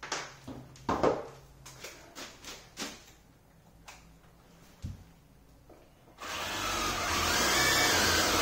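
A few short knocks and clicks of tools being handled, then about six seconds in a power drill starts and runs steadily, cutting a small recess into a wooden butcher-block countertop.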